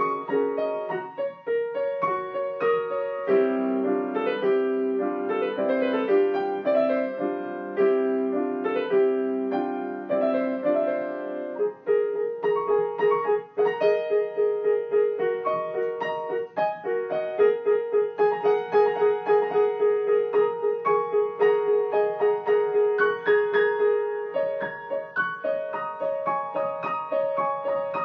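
Solo improvised piano music: chords in the middle range for the first half, then quick, evenly repeated notes for the rest.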